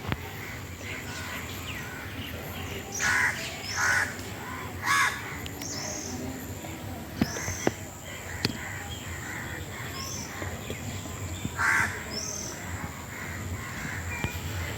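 Birds calling: four loud calls about three, four and five seconds in and again near the end, with several short, high, rising chirps between them and a steady thin high tone behind.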